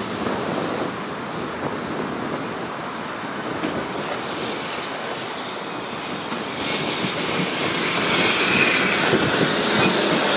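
Modern articulated tram rolling round a curve on its rails, wheels running with a steady rumbling noise. The noise grows louder about two-thirds of the way in, with a high hiss from the wheels and rails as the tram passes close.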